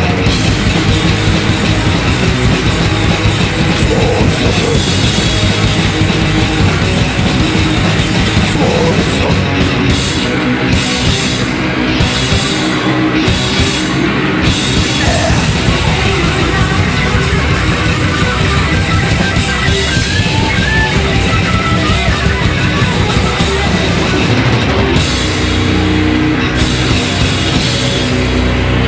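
Heavy metal band playing loudly and without a break: two electric guitars, bass guitar and a drum kit.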